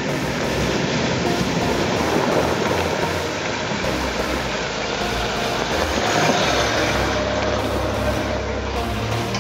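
Land Rover Discovery 3 fording a shallow river: the engine runs under steady throttle while water splashes around the wheels. It grows loudest about six seconds in as it drives out onto the gravel and passes close by.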